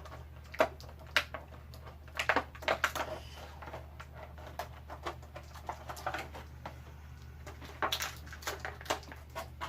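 Scattered sharp clicks and light rustling from small plastic action-figure accessories and packaging being handled, over a steady low hum.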